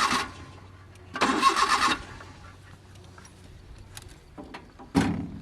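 Suzuki Mehran's starter motor cranking the engine in two short tries of under a second each, about a second apart, then a shorter burst near the end. These are repeated start attempts on a car that won't start.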